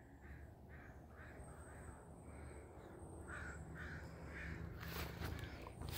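A crow cawing faintly and repeatedly, short caws a fraction of a second apart in two bouts. A brief rustle of handling comes near the end.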